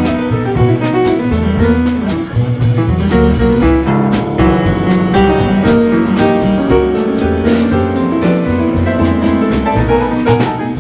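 A small jazz group playing a tune: piano over a stepping double-bass line, with drum-kit hits and cymbals keeping time.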